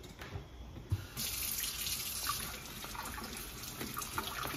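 A single knock about a second in, then a kitchen faucet runs water into a stainless steel colander of cut corn cobs in the sink, with small splashes as hands rub the corn under the stream.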